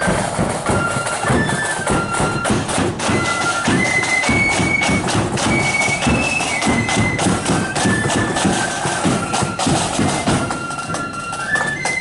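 Marching flute band playing a tune: flutes carry a high, stepping melody over a steady pounding of drums.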